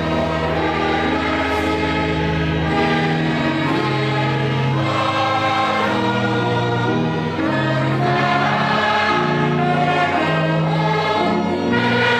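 A choir singing in held chords that change every second or so, over a low sustained bass.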